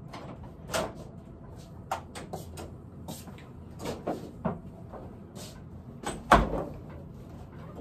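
Scattered clicks, knocks and rustling of a person moving about a workshop and handling things, including an apron taken off its wall hook. The loudest is a single heavy knock about six seconds in, like a door or cabinet bumping shut.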